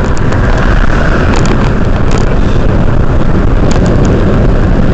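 Car driving, heard from inside: a loud, steady rush of wind and road noise with a heavy low rumble.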